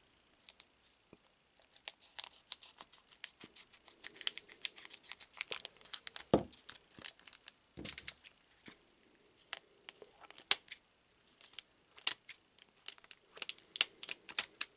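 A foil trading-card booster pack being cut and torn open by hand, its wrapper crackling and crinkling in quick irregular bursts, with a couple of dull knocks about six and eight seconds in. The cut was too shallow, so the wrapper has to be torn the rest of the way.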